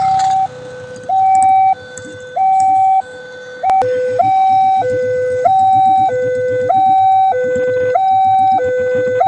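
Railway level-crossing warning alarm sounding a two-tone hi-lo siren: a higher and a lower tone alternating evenly, each held a little over half a second. A sharp click comes a little under four seconds in, and after it the lower tone sounds as loud as the higher one.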